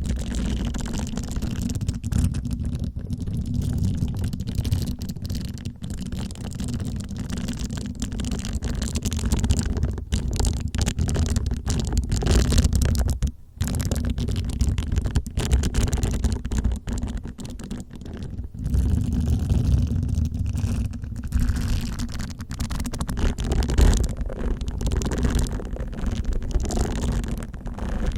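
Facial cleansing brush bristles rubbed and swept against the microphone: a dense scratchy rustle over a heavy low rumble, with a brief pause about halfway through.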